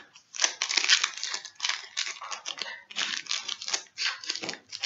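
Foil Pokémon booster pack and trading cards being handled: a run of irregular crinkling, tearing rustles with brief pauses.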